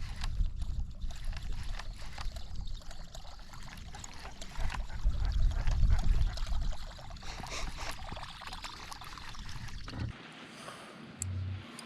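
Water splashing and lapping against a boat's hull, with wind rumbling on the microphone. The rumble swells about five seconds in and cuts off suddenly near the end.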